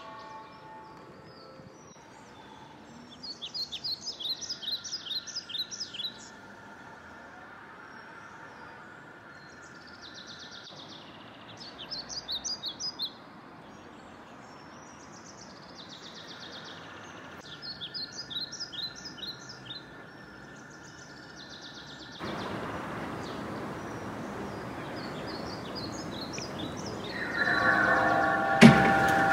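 A songbird sings short bursts of rapid high chirping notes, four times with pauses between. About three-quarters of the way through, a loud steady rushing noise sets in. Near the end, several steady tones sound together along with a sharp knock.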